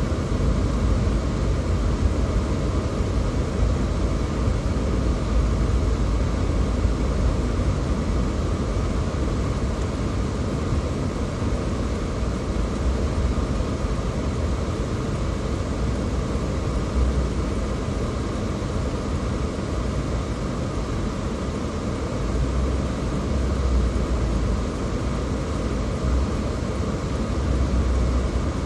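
A car driving: steady road and engine noise with a deep, low rumble, swelling slightly now and then.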